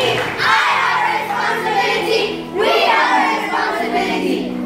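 A group of children's voices singing and shouting together over music with steady held notes, with a rising whoop about two and a half seconds in.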